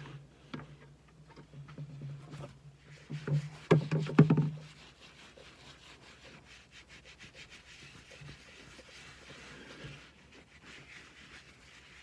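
A hand gear-oil pump and its hose being worked at the rear differential fill hole: rubbing and clicking over a low hum, with a cluster of loud knocks about four seconds in, then quieter scuffing.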